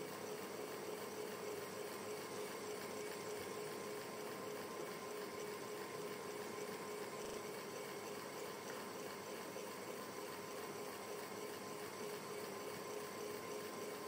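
Ceiling fan running: a soft, continuous whirring hiss with a steady low hum under it.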